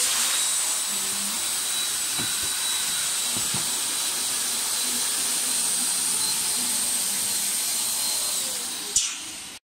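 Electric air pump blowing a steady hiss of air through a corrugated hose into the inflatable bulwark tube of a PVC boat, with a thin high whistle over it. A sharp click comes about nine seconds in, and the air then cuts off abruptly.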